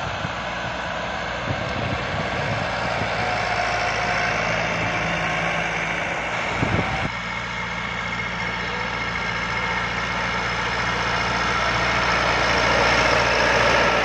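An engine running steadily at an even speed, a constant low hum, with a short knock about seven seconds in.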